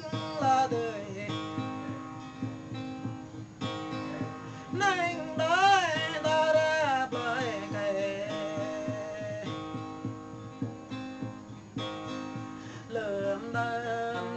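Background music: a song with a singing voice over plucked guitar.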